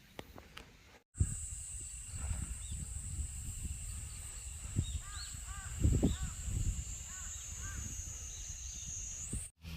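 A few short bird calls in the middle, over a steady high-pitched whine and a low rumble on the microphone, with a couple of dull thumps about six seconds in. The sound drops out briefly near the start and near the end.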